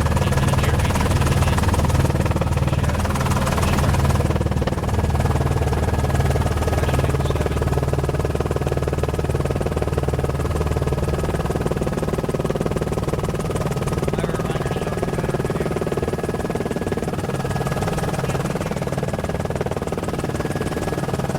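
News helicopter in flight, its rotor and turbine making a steady drone with a slow, regular pulsing low down, as heard on the onboard news audio.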